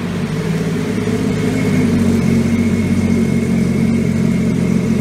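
Small jet boat's engine running hard and steady, with a thin high whine joining about two seconds in.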